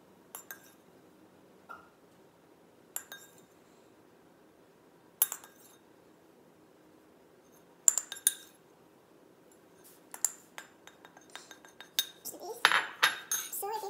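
A metal spoon clinking against a bowl as cinnamon-sugar filling is spooned out: single sharp clinks every second or two, then a quick run of rapid taps and scrapes near the end as the bowl is scraped clean.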